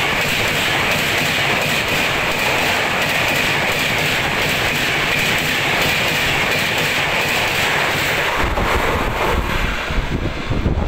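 Express train's passenger coaches passing a station platform at about 130 km/h: a steady loud rush and hiss of steel wheels on rail, with some clatter over the rail joints. About eight and a half seconds in, the rushing thins as the last coach clears and a gusty low rumble takes over.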